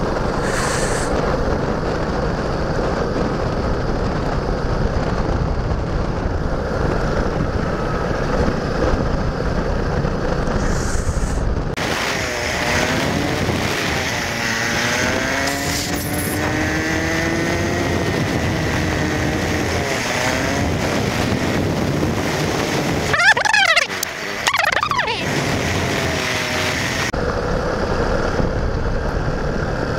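Suzuki Gixxer single-cylinder motorcycle running at road speed with wind rushing over the microphone. About twelve seconds in the road noise suddenly gives way to sliding, wavering tones, with two fast sweeping chirps, before the riding noise returns near the end.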